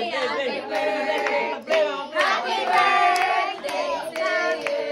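A small group of adults and children singing a birthday song together, with hand claps keeping a steady beat.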